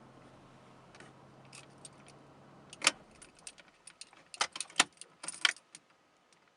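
A bunch of keys jangling: a string of sharp metallic clicks and jingles, densest and loudest past the middle, over a faint low hum that stops about three seconds in.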